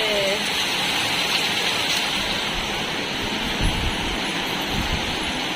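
Torrential rain pouring down, a steady loud hiss, with a few brief low rumbles in the second half.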